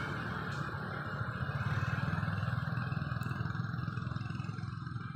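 A motor vehicle's engine running steadily with a low rumble.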